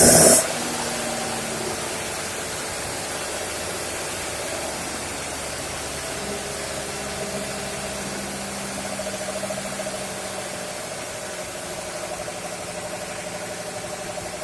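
Fire pump engine running steadily, a hum with a fast pulsing tone over it. A loud rushing noise cuts off suddenly about half a second in.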